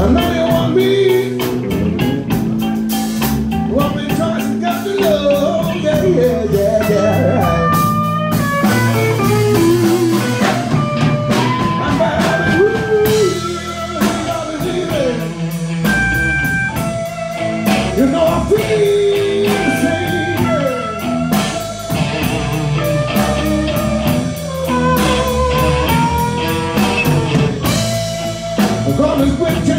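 Live blues-rock band playing: a melody line with many bent, sliding notes over steady bass and a drum kit.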